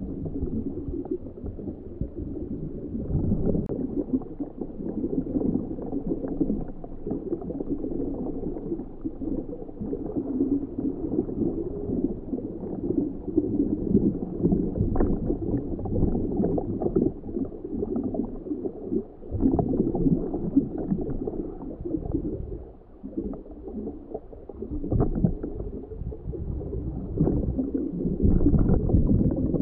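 Muffled underwater rumble and gurgling picked up by a homebuilt ROV's onboard camera as it moves over the seabed, with scattered faint clicks; it dips briefly about three quarters of the way through.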